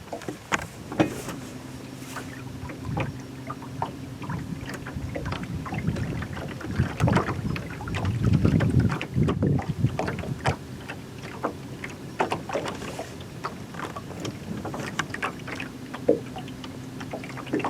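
Boat motor running with a steady low hum, with irregular knocks and clatter on and around the boat. The rumble grows louder about eight seconds in.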